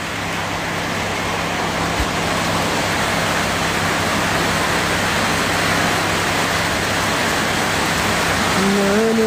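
Heavy rain falling, a steady even rush of noise with a faint low hum underneath.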